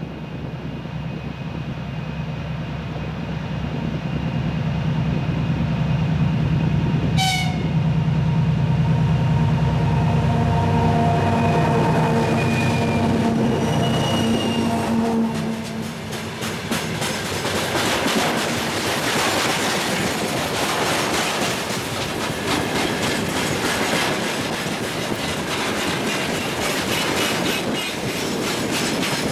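Twin-section 2TE10U diesel locomotive's 10D100 two-stroke opposed-piston engines running as it hauls a freight train past. The engines grow louder to a peak, then fall away about halfway through. After that the freight wagons roll by with a steady clickety-clack of wheels over rail joints.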